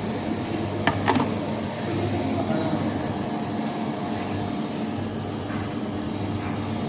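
Steady mechanical hum with a low drone and a few constant higher tones under an even noise, like air conditioning or appliance background noise. A brief voice-like sound about a second in.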